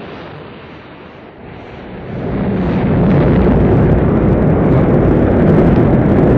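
Rocket engines at liftoff: a rumble that swells about two seconds in into a loud, steady roar with crackle.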